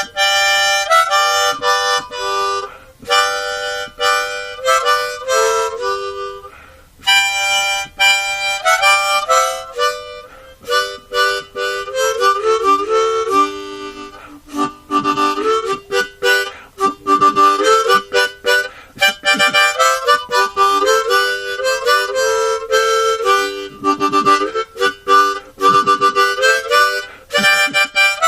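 Background music: a harmonica playing a melody of quick notes.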